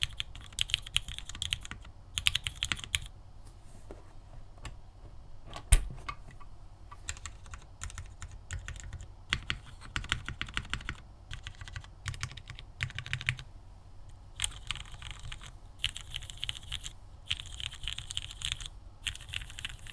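Typing on a Mode Tempo 60% mechanical keyboard: fast runs of key clicks alternate with slower single keystrokes, with one louder knock about six seconds in.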